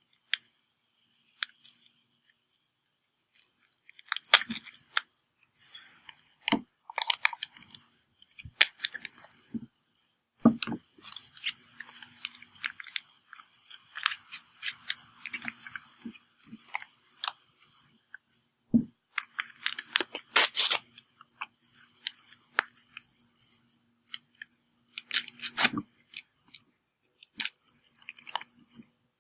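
Crinkling and rustling of a yeast packet being opened and handled, with scattered sharp clicks and taps in irregular clusters.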